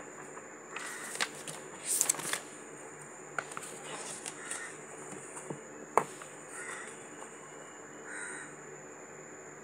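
Rustling and a handful of sharp clicks and taps, as of paper and small objects handled at a desk, over a steady room hum with a faint high whine. The loudest is a single sharp click about six seconds in.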